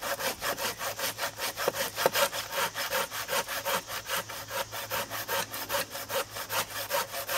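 Handsaw cutting into a log, worked by a child in quick, even back-and-forth strokes.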